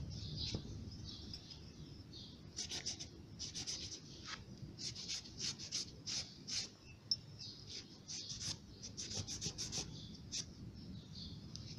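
Terry-cloth towel rubbing a rusty steel ring spanner in quick repeated strokes, about two to three a second, wiping off rust loosened by a vinegar soak. The rubbing starts about two and a half seconds in and stops near the end.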